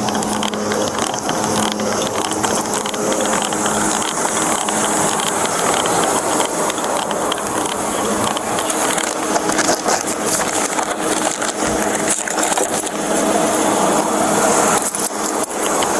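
Rustling, rubbing and rattling of a body-worn camera against the wearer's clothing as they move, a dense steady scuffing noise full of small clicks.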